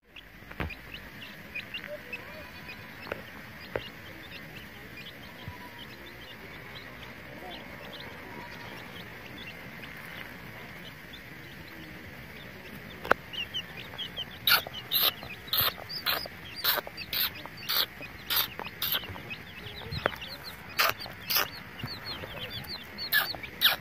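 Young chicks peeping faintly as they forage. About halfway through, a run of louder, sharp chirps begins, about two a second.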